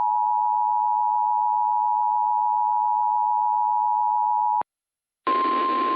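Emergency Alert System two-tone attention signal: a steady dual-tone alarm that cuts off suddenly about four and a half seconds in. After a brief silence, the single-tone NOAA Weather Radio 1050 Hz warning alarm starts, with radio static under it.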